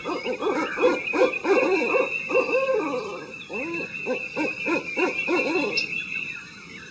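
Many birds giving low, hoot-like calls that overlap in quick succession, each a short rise and fall in pitch. A steady high-pitched drone runs underneath.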